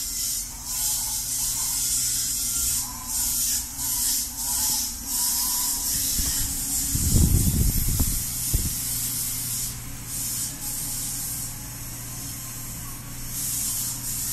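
A steady loud hiss, broken by brief dips, over a low steady hum. A heavy low rumble comes about halfway through.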